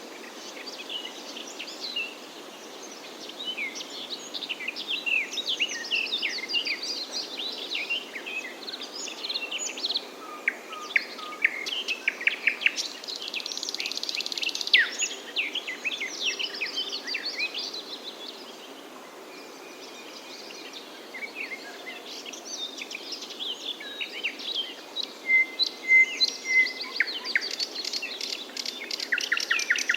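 Several songbirds chirping and singing over one another in quick, high notes, over a steady background hiss. The singing thins out about two-thirds of the way through, then picks up into a fast run of chirps near the end.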